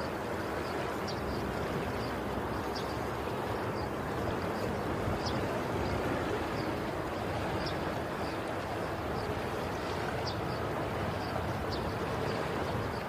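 Steady rushing water noise, an underwater aquarium ambience with bubbles, with faint light ticks about once a second.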